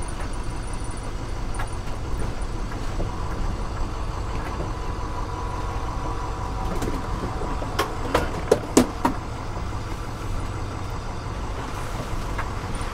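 School bus engine running steadily as the bus rolls slowly over a gravel road, heard from inside the cab, with a few sharp rattles and knocks about eight seconds in.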